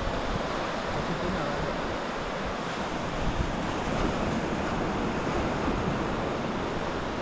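Sea surf washing steadily onto the beach, with wind rumbling on the microphone.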